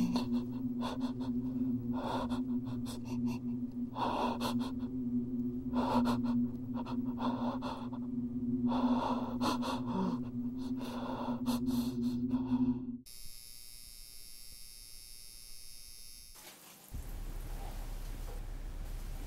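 A person breathing in heavy, gasping breaths, one every second or so, over a steady low hum. About thirteen seconds in this cuts off, and a high, thin tone sounds for a few seconds before fading to faint hiss.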